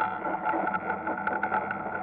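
Ice kart's motor running at a steady pitch, with short clicks and knocks scattered through it.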